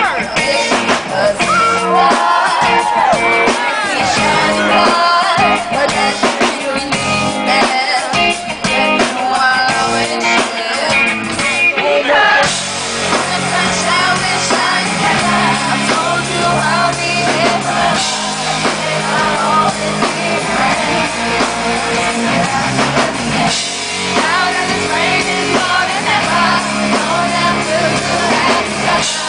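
A live band playing a pop-rock song with drum kit and guitar, with a female lead vocal singing over it at a sound check. About a third of the way in, the band swells into a fuller, denser section.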